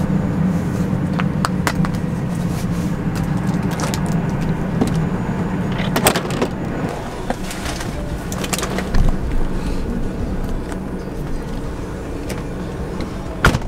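A vehicle engine idling steadily, with scattered clicks and knocks over it. A car door shuts with a sharp thud just before the end.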